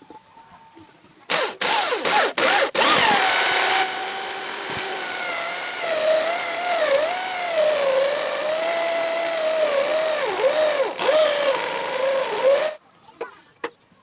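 Corded electric drill with a hole saw cutting into a wooden board: a few short trigger blips, then a run of about ten seconds, the motor's whine dipping and recovering in pitch as the saw bites into the wood. It stops abruptly near the end.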